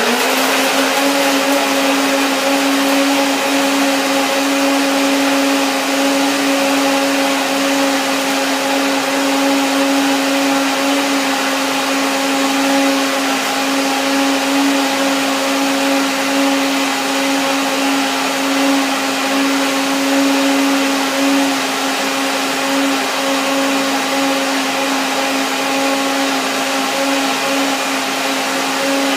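Countertop blender running at a steady speed, a loud unchanging motor hum with a hiss, puréeing raw pumpkin chunks, dates and juice into soup.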